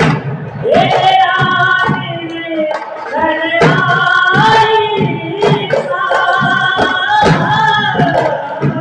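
Rajasthani folk music for a Bhavai pot dance: held, wavering sung notes over a steady run of percussion strokes.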